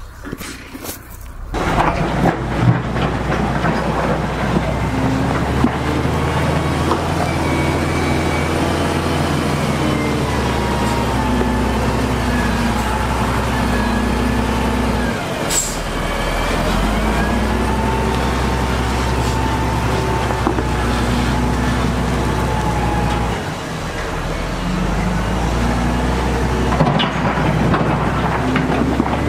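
Heavy diesel engines running steadily: an SDLG wheel loader working rock, with dump trucks nearby. One sharp, short sound is heard about halfway through.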